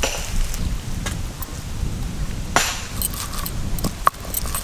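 Stone roller (nora) rocked and pressed over peeled prawns on a carved stone grinding slab (shil), crushing them coarsely: a steady low rough rumble of stone on stone, with a few sharp clicks.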